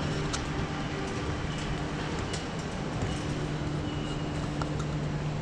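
Steady low mechanical hum of an airport terminal, with a constant drone and scattered faint clicks over a wash of background noise.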